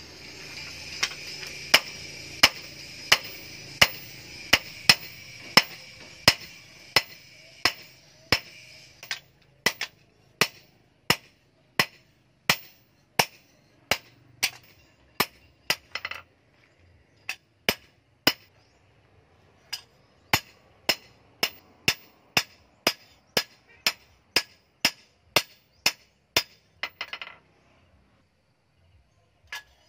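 Hand hammer forging a heated steel kitchen-knife blank on a steel post anvil: sharp metallic blows at about three every two seconds, with a couple of short pauses, stopping shortly before the end.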